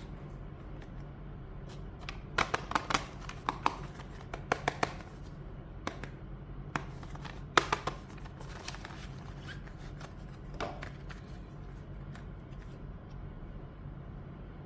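Hands handling small hard objects: clusters of sharp clicks and taps, the loudest about two and a half to five seconds in and again near eight seconds, over a low steady hum.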